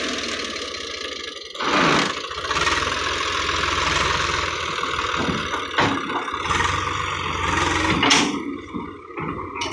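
Swaraj 855 FE tractor's three-cylinder diesel engine running steadily with its hydraulic tipping trailer raised. A few louder rushes of noise come about two seconds in, near six seconds and about eight seconds in.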